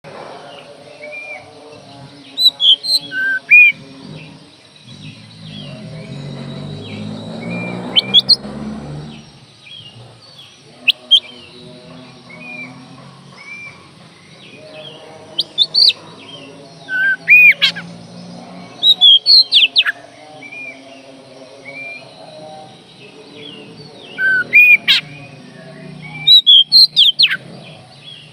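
Caged Oriental magpie-robin (kacer) singing: clusters of loud, sharp whistled notes come every few seconds, with softer warbled notes between them. A low hum runs underneath.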